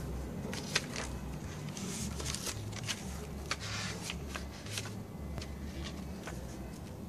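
Paper rustling and crinkling as sheets or pages are handled, in a string of irregular soft crackles, over a faint low rumble.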